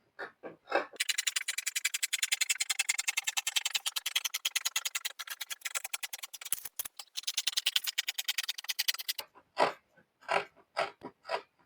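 Fabric scissors cutting through folded cloth along a marked line: a fast, even run of crisp snips lasting about eight seconds, then a few separate sharp sounds near the end.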